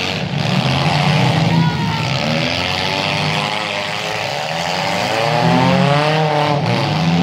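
Several small-car demolition derby engines revving and running together, their pitch rising and falling as the cars drive and ram, climbing higher about five seconds in.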